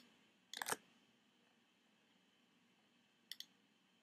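Computer mouse button clicking: a sharp press-and-release pair about three seconds in, picking the first point of a linear dimension. There is also a brief double knock a little over half a second in, over near-silent room tone.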